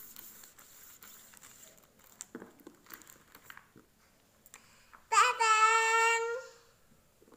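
A small girl's voice holding one long high note for over a second, starting about five seconds in, after faint taps and rustles of her hands on a desk.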